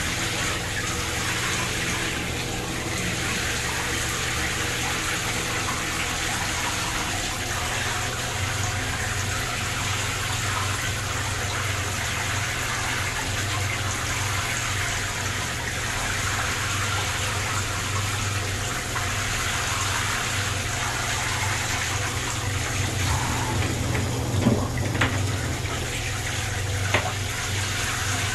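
Tap water running steadily into a bathtub, an even rushing sound, with a few short knocks near the end.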